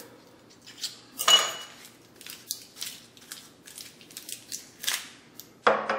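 Knife cutting and scraping at the seal on the neck of a glass hot sauce bottle: a string of small clicks and scrapes, with a louder scrape about a second in and another near the end.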